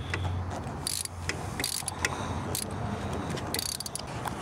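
Ratchet wrench clicking in short irregular runs as an 8 mm hex bit on a long extension backs a banjo bolt out of the transmission cooler line, with small metal tool clinks, over a low steady hum.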